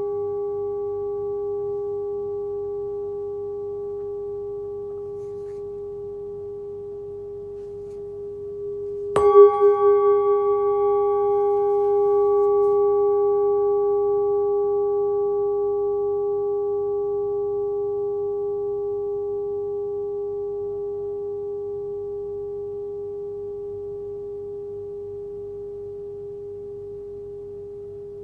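Hand-forged singing bowl tuned to about 406 Hz (G#) ringing in a clear, steady tone with a few higher overtones, fading slowly. It is struck again about nine seconds in, wavers briefly, then rings on and slowly dies away.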